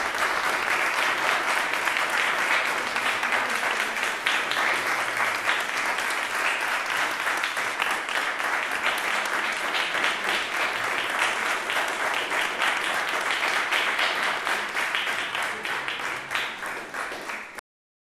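Audience applauding steadily, with many hands clapping at once, until the sound cuts off suddenly near the end.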